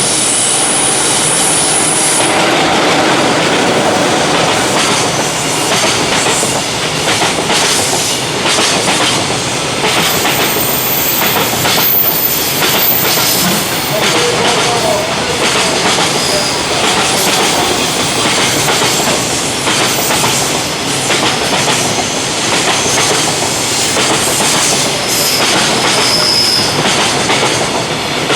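A long JR Freight container train running past at speed, its wagon wheels clattering over rail joints in a continuous loud run of clicks.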